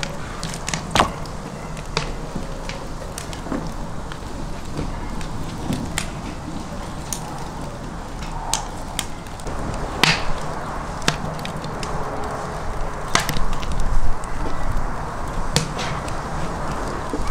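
Large kitchen knife cutting raw whole chickens into halves on a wooden cutting board: irregular sharp knocks as the blade strikes through bone onto the board, every second or two, over a steady low background rumble.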